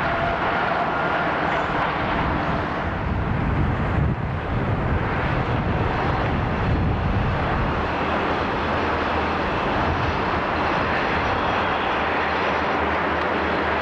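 Freight train passing, a steady loud rumble of rolling equipment.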